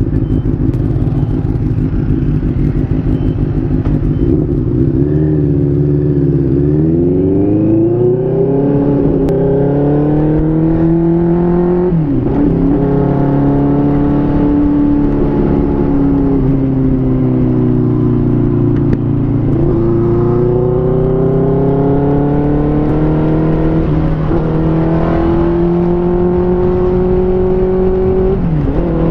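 Benelli TNT600's inline-four engine running on the road, picked up by a helmet-mounted mic: steady for the first few seconds, then rising in pitch as it pulls, with brief dips at each of about four gear changes.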